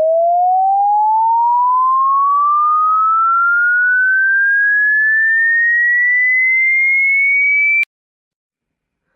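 A single pure electronic tone sweeping steadily upward in pitch, then cutting off abruptly about a second before the end.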